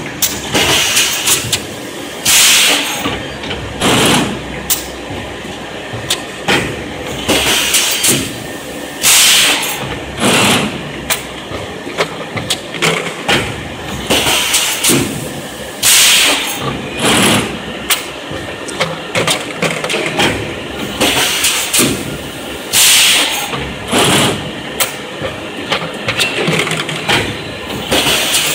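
Fully automatic 4-cavity PET bottle blow moulding machine running through its cycles: sharp bursts of compressed-air hiss and clacks from the pneumatic actuators every second or two, over a constant machine noise.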